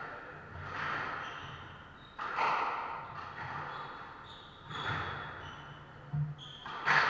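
Squash rally: the ball struck by rackets and hitting the court walls, about four sharp cracks that echo around the court. Short shoe squeaks on the wooden floor come between the shots.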